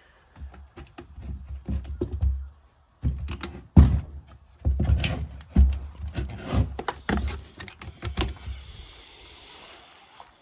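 Irregular low thumps and sharp clicks of someone walking and handling things, knocks and rattles coming unevenly, with a faint hiss after about eight seconds.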